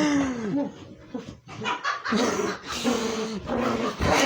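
A dog making drawn-out, odd vocal noises: a call that falls in pitch right at the start, then a longer wavering call from about two seconds in.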